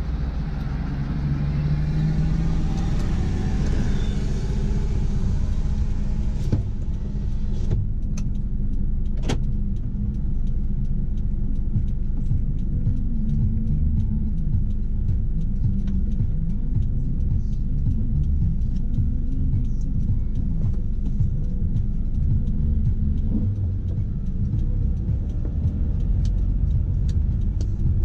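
A car on the move: steady low rumble of engine and road noise, with a few sharp clicks between about six and nine seconds in.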